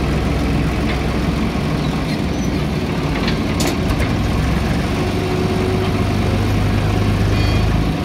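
Diesel engines of a Swaraj farm tractor and a JCB backhoe loader running steadily at close range, with a low hum whose deeper note strengthens over the last few seconds as the tractor and trailer move up. A few brief clicks or clanks come about three and a half seconds in.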